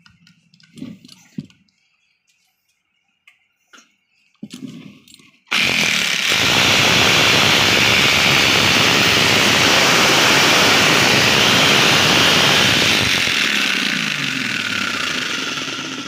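Freshly greased 5 kg electric demolition hammer test-run after servicing: a few light handling knocks, then about five seconds in it starts up and hammers loudly and steadily with rapid even blows, fading away near the end.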